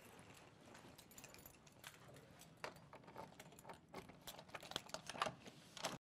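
Footsteps, then keys jangling and a door's lock and handle clicking as the door is opened, with a quick run of sharp clicks over the last few seconds that cuts off suddenly.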